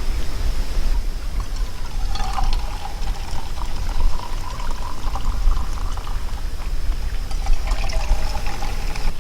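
Liquid poured into a cup for coffee, in two pours, the pitch rising as the cup fills, over a steady low rumble.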